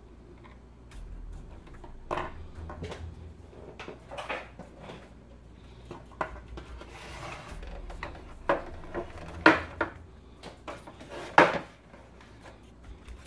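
The hard plastic housing and circuit-board panel of an electronic Battleship game being handled and fitted together: scattered clicks and knocks of plastic on plastic and on the wooden bench, with a few sharper knocks in the second half.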